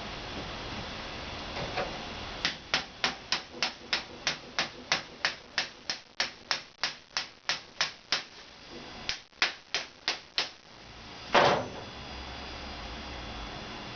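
A steady run of sharp mechanical clicks, about three a second for some six seconds, then a few more spaced clicks and one louder knock near the end.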